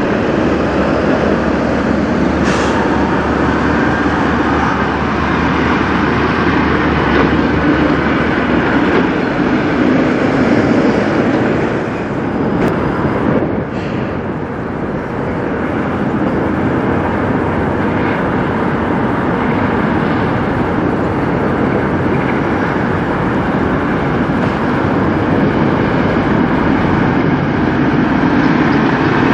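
Diesel engines of semi trucks, including Peterbilt car haulers, running as the trucks drive slowly past, with a low steady hum for about the first nine seconds.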